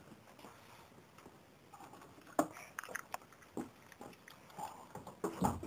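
Scattered clicks and knocks from handling, with a heavier thump near the end.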